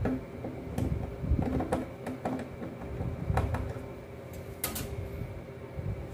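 Scattered light clicks and knocks with low handling rumble, from hands and tools working wires and terminals on an electrical control panel, over a faint steady hum.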